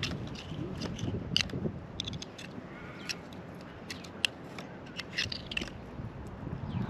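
A small metal fork scraping and clicking against an oyster shell as the oyster is prised loose, in short irregular clicks.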